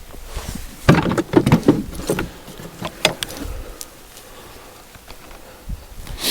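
Trapping tools and gear being handled and set aside, a quick run of knocks and clatters about a second in, a few more around three seconds, then a single sharp click at the end.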